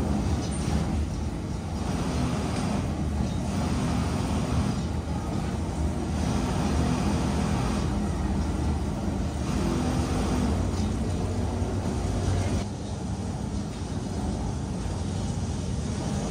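Cloth-factory machinery running steadily with a deep hum, its higher hiss swelling and fading every second or two in a repeating cycle.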